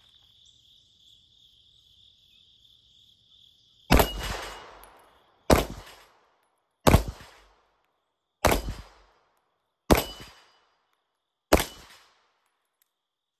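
Six 9mm shots from a Wilson Combat EDC X-9 pistol fired at steel plates, spaced about a second and a half apart and starting about four seconds in, each a sharp crack followed by a short echo.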